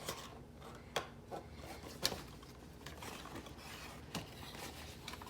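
Cardboard toy box being opened along its perforated tear-open part: rubbing and scraping of the card, with sharp clicks about one, two and four seconds in.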